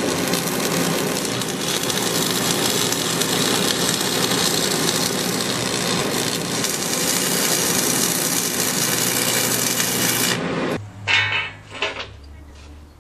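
Electric arc welding on a steel railing joint: a steady, dense hiss of the arc for about ten seconds that stops suddenly. A couple of sharp knocks follow, then a quieter low hum.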